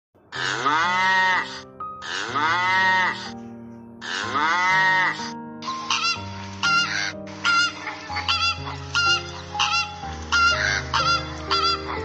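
Three long fowl calls with an arching pitch, each about a second, then from about six seconds a flock of flamingos honking in short, quickly repeated calls. Soft background music with long held notes runs underneath.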